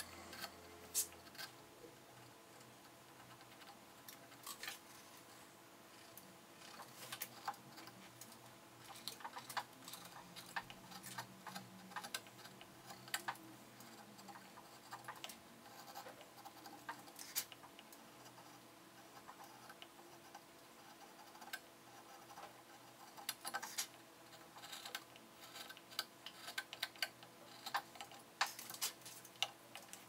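A hand carving chisel slicing and scraping into basswood: a string of short, irregular scratches and clicks as the blade pares off small chips.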